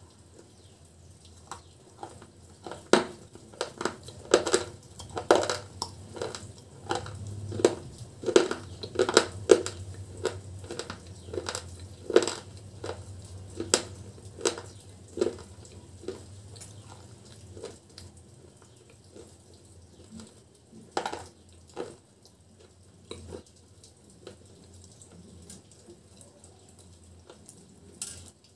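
Close-miked crunching and chewing of a dry, chalky white chip: sharp crackling bites come thick and fast for most of the first two thirds, then thin out to a few scattered crunches.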